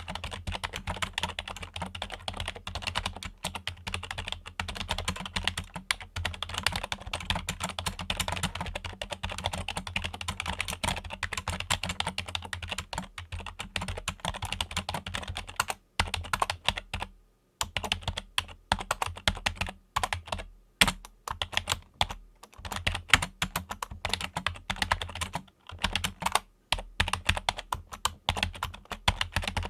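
Fingers typing on a Logitech computer keyboard: a fast, continuous run of key clicks for about the first half, then shorter runs of typing broken by brief pauses.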